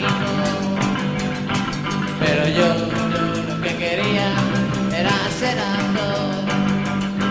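Pop-rock band playing an upbeat song: a singer over a steady drum beat, bass guitar and guitar.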